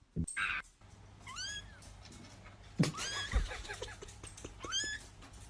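A cat meowing in short, high-pitched mews, about four of them spread through the clip, with a sharp thump a little before the middle.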